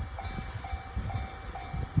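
Freight train rolling through a level crossing, a low rumble with irregular clunks of wheels over the rail joints. The crossing's warning bell rings steadily throughout, about twice a second.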